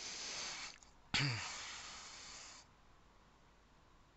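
A person's breathing close to the microphone: a drawn-in breath, then about a second in a sudden exhale with a short falling vocal sigh that fades over about a second and a half.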